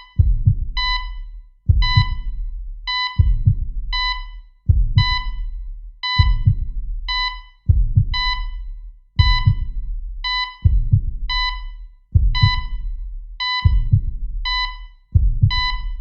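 Sound effect of a thudding double heartbeat about every second and a half, layered with a repeating electronic beep like a heart monitor.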